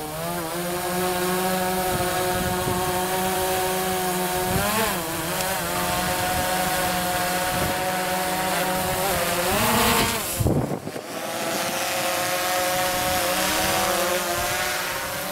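DJI Phantom quadcopter's four propellers whining steadily as it hovers and climbs. The pitch rises briefly about five and ten seconds in as the motors speed up, and there is a short break just after the second rise.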